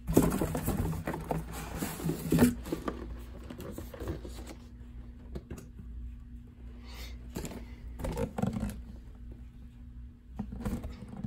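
Cardboard scraping and rustling as a shoebox is slid out of a corrugated shipping carton, densest in the first couple of seconds, then scattered light knocks and handling noises.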